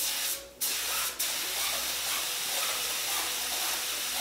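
Compressed air hissing out of a 100-year-old DeVilbiss siphon-feed spray gun atomizing water, cut off briefly about half a second in and again for an instant just after a second, then held steady. The gun is spitting and sputtering, which the owner puts down to an air leak at the air cap.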